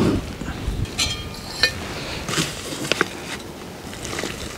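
Metal camping cook pot and its lid being handled off a gas stove after the boil: several short sharp clinks and taps, one with a brief metallic ring.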